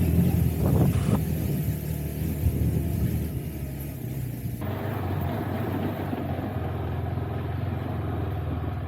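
Motorcycle engine running steadily at low revs, with an abrupt shift in its tone about four and a half seconds in.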